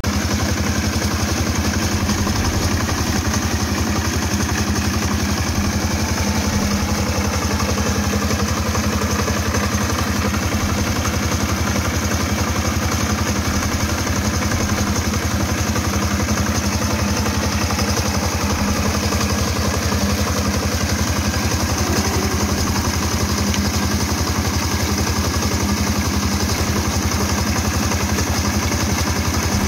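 Small single-cylinder diesel engine driving an irrigation water pump, running steadily with a fast even chugging, over the rush of water gushing from the pump's outlet pipe.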